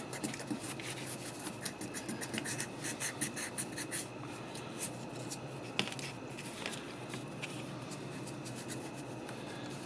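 Small scratching and rubbing strokes of hand-cleaning the contacts and terminals of a Chevy truck dimmer switch. The strokes come quickly and unevenly for about four seconds, then sparser, with a few light clicks.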